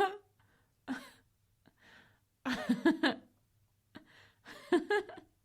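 A woman giggling in short bursts, with breathy intakes of breath between them; the longest run of giggles comes about two and a half seconds in, and another near the end.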